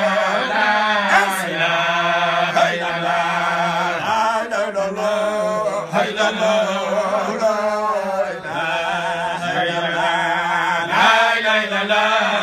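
Arabic devotional chanting: a lead voice sings a wavering, ornamented melody over a steady held drone from other voices, in phrases with short breaks between them.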